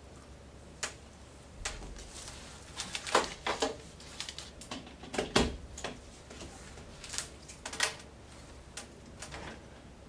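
Power supply cable and plugs being handled and connected to a video converter box: irregular clicks, knocks and rattles of plastic plugs and cable, loudest a few seconds in.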